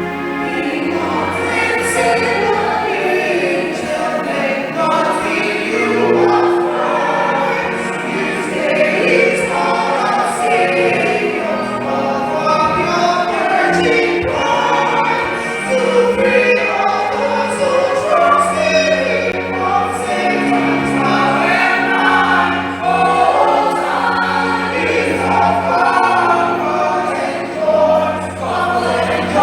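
A choir singing over an accompaniment of sustained low notes that change every second or two.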